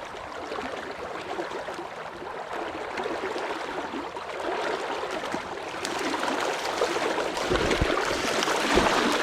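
Steady rushing of a stream's running water, growing a little louder in the last few seconds, with a few low thumps near the end.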